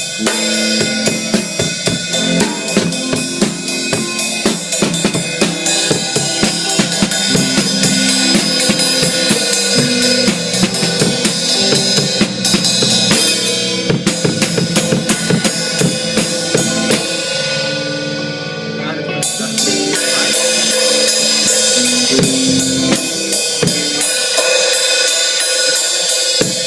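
Band music driven by a drum kit, with snare, bass drum and cymbals keeping a steady beat under pitched instruments. The high end thins out briefly about two-thirds of the way through, then the full band comes back in.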